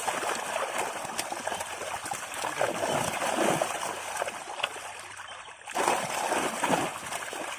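Water splashing and trickling, with a short lull about five and a half seconds in, followed by louder splashes.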